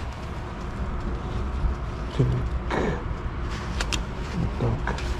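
Small sharp clicks and handling noise as a clip-on throttle lock is fitted onto a motorcycle's throttle grip, over a steady low rumble.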